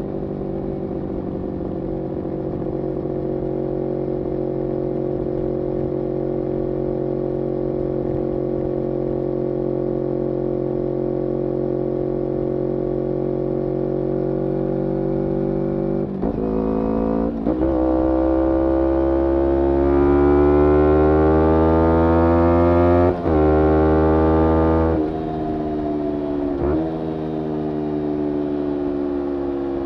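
Kawasaki Ninja 250R parallel-twin running through a full Graves racing exhaust. It holds a nearly steady note for about half the time, then after two quick breaks the revs climb twice, louder, with a brief cut between the climbs, before falling back to a steady note near the end.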